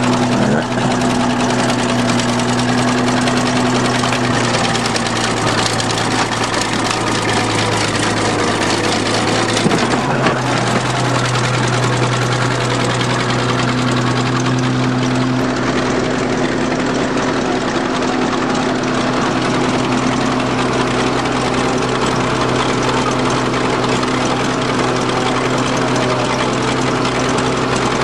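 Bulldozer's diesel engine running steadily, its note shifting slightly a couple of times partway through.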